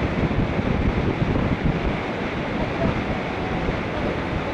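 Wind buffeting the microphone of a camera on a moving bicycle: a loud, steady rushing noise with gusty low rumble, a little stronger in the first half.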